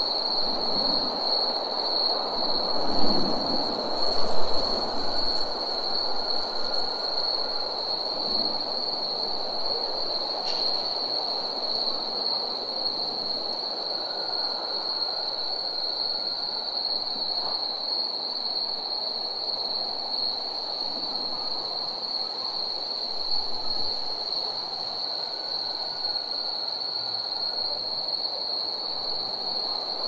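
Night ambience: insects trilling in one steady, unbroken high note over a constant rushing background, with two low rumbles about three and four seconds in.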